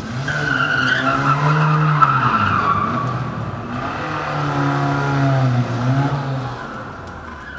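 A car drifting: its engine revving hard and its tyres squealing, in two long spells of about three seconds each.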